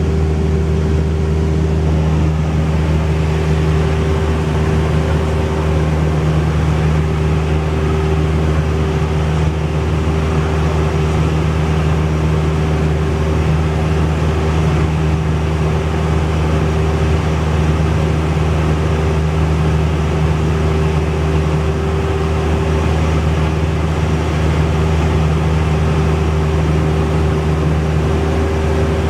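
Cessna 172's piston engine and propeller droning steadily at one unchanging power setting.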